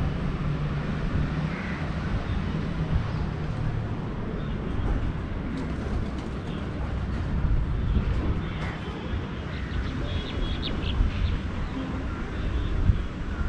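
Steady low rumble of city traffic, with wind on the microphone. Faint bird chirps come and go, with a brief cluster of high chirps about ten seconds in.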